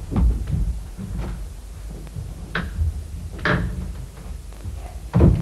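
Footsteps and a door being opened and shut as people walk out, a series of knocks and thuds with the heaviest thud near the end.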